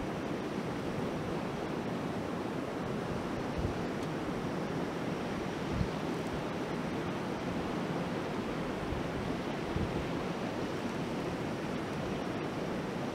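Portable gas camping stove burners running with a steady hiss, mixed with wind rumbling on the microphone.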